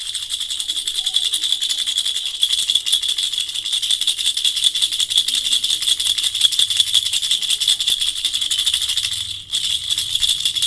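Jhunjhuna, a handheld baby toy rattle, shaken rapidly and continuously, giving a dense, high-pitched rattling. It stops briefly about nine and a half seconds in, then starts again.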